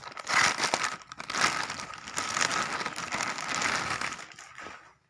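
Clear plastic polybag crinkling as it is handled, opened and pulled off a garment. The crackling stops near the end.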